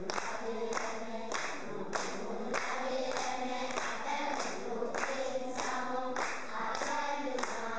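A group of schoolchildren singing together and clapping in time, a steady beat of about two claps a second.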